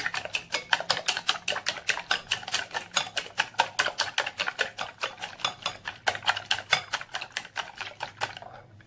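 Eggs being beaten with wooden chopsticks in a glass bowl: a fast, even clicking of the chopsticks against the glass, about six strokes a second, stopping near the end.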